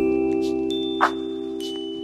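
Background music: a held, chime-like chord with a single sharp percussion hit about a second in.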